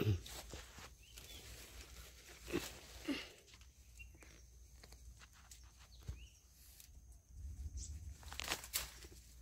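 Scattered eating sounds from chicken curry and rice being eaten: short rustles, clicks and smacks at irregular intervals, with a louder knock right at the start.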